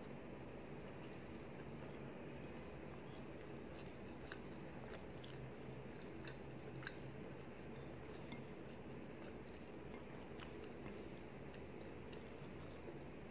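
Faint chewing and small wet mouth clicks from someone eating rice and curry by hand, over a steady background hiss.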